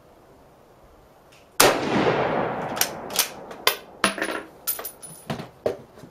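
A 1941 Mosin-Nagant bolt-action rifle in 7.62x54R fires one loud shot about a second and a half in, with a long ringing decay. It is followed by a run of sharp metallic clicks and clacks as the rifle is handled and set down on the wooden bench.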